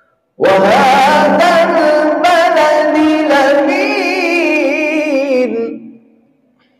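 A male qari's voice chanting the Quran in one long melodic phrase, its pitch wavering and ornamented as the note is drawn out. It begins about half a second in and fades away about six seconds in.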